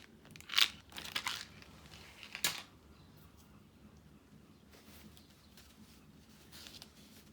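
Plastic packaging crinkling as it is handled, in a few short rustles during the first couple of seconds, then fainter handling noise.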